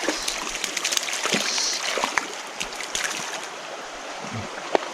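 Small creek running, with scattered small splashes and clicks of water.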